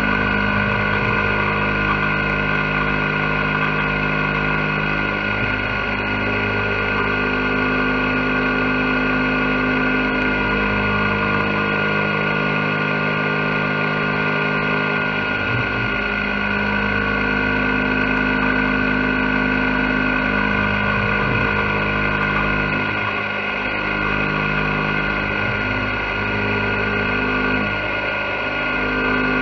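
CNC milling machine cutting a pocket into an aluminium block under flood coolant: a steady high spindle whine over lower machine tones that shift every few seconds as the cut goes on.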